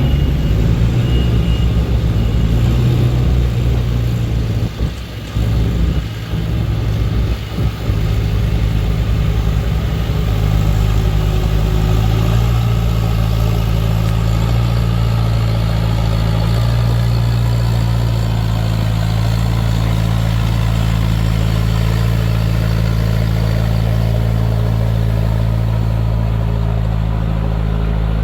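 Diesel engine of a Dezzi MG80T motor grader running steadily at work, with several brief dips in level in the first third.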